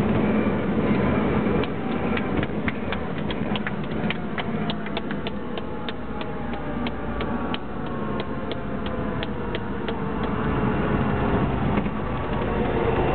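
Cabin noise of a light aircraft rolling out after landing on a wet runway: steady engine and propeller noise, with a hum that slowly falls in pitch as the aircraft slows. For several seconds a sharp regular clicking, about three clicks a second, runs over it.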